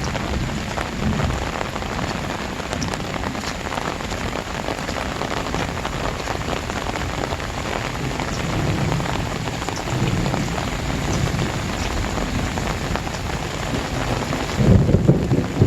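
Very heavy rain pouring steadily onto surfaces, a dense even hiss. About a second before the end, a louder low rushing sets in.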